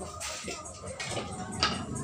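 Faint background music, with one sharp knock about one and a half seconds in.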